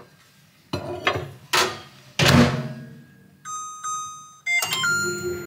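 Microwave oven being used: a few knocks as the door is handled and shut, then its keypad beeping as the cooking time is set, with a cluster of beeps and button presses near the end.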